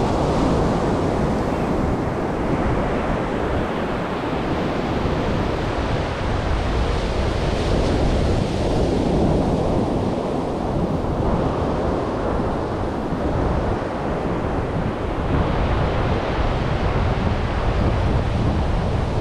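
Ocean surf breaking and washing up a sandy beach, swelling and easing every several seconds, with wind buffeting the microphone.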